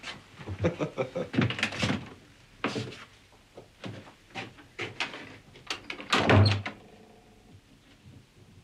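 A door being handled, with a run of knocks and clatters, then shutting with a heavy thud about six seconds in.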